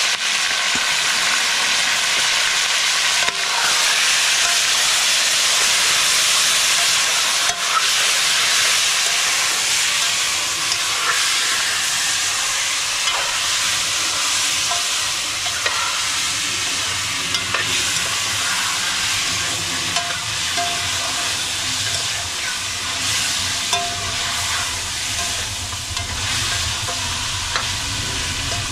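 Chicken pieces frying in hot oil in a pot: a steady sizzle with scattered small pops and crackles.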